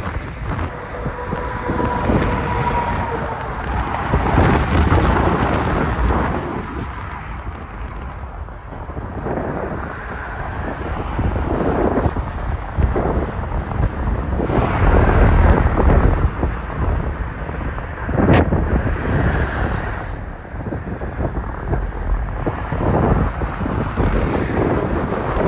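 Wind gusting over the microphone in uneven surges, over a steady wash of road traffic. A sharp click about two-thirds of the way through.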